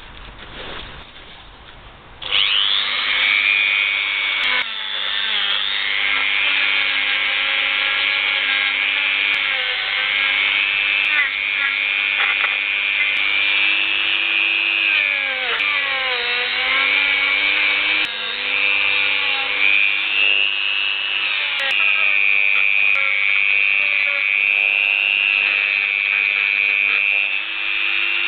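Handheld rotary tool with a small wire brush running at high speed, cleaning the metal of a van's heater fan resistor. It starts about two seconds in as a high-pitched whine that sags in pitch several times when the brush is pressed against the part, then picks back up.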